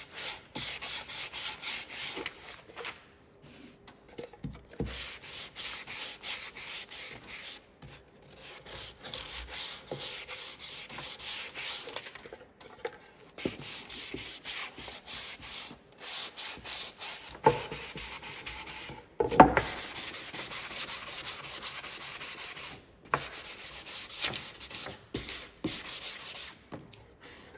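Sanding block rubbed back and forth over the edges and face of unfinished wooden boards: quick, even scratching strokes in runs with short pauses, smoothing the rough cut edges before staining. Two sharp knocks come about two-thirds of the way through.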